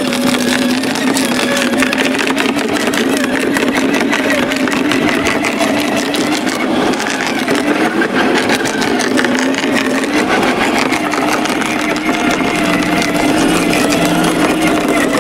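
Electric garden shredder running under load as a leafy branch is fed into it, the motor's hum wavering while the wood crackles and crunches through the cutter.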